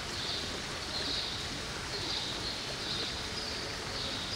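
Ambient background: an even rushing hiss with a faint, high chirp repeating about once a second.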